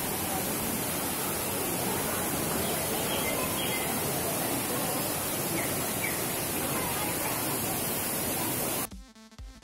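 Steady rushing of falling water in an indoor tropical hall, with a few faint short bird chirps. Near the end it cuts off abruptly and electronic music with a beat begins.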